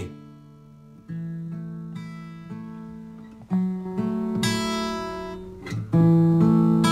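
Acoustic guitar played slowly, chords struck a few at a time and left to ring. The loudest chord comes near the end.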